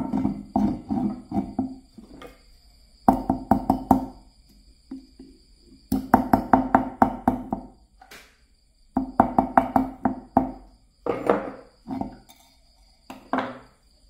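Hammer blows on copper wire laid on a wooden block, flattening the wire. The blows come in quick bursts of several strikes, about five a second, each with a short ringing knock.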